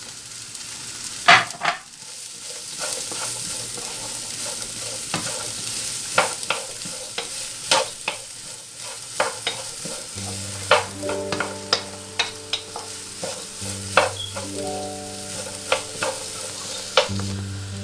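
Chopped onions sizzling in hot oil in a pan, stirred with a spoon that clicks and scrapes against the pan.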